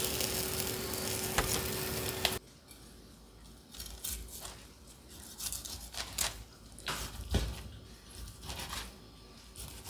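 A steady hiss cuts off abruptly about two and a half seconds in. A chef's knife then slices through a cooked pork chop on a plastic cutting board, making scattered soft knocks and taps.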